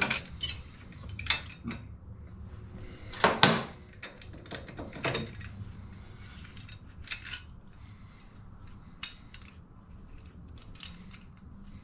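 Scattered metallic clinks and clatter of hand tools and bolts being handled while a cover is unbolted from a motorcycle, with one louder clank about three and a half seconds in.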